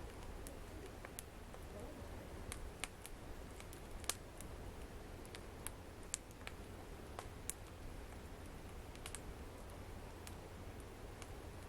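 Wood fire in a fireplace crackling, with irregular sharp pops, the loudest about four seconds in, over a low steady hum.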